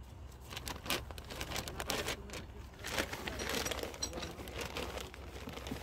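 Thin plastic bag crinkling and rustling in irregular bursts as it is handled and drawn out of a steel tin of granular thermite powder.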